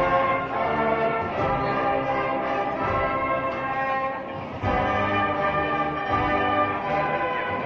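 Agrupación musical, a Seville-style brass and drum band, playing a Holy Week processional march: sustained brass chords over drum beats. The band dips briefly about four and a half seconds in, then comes back in strongly.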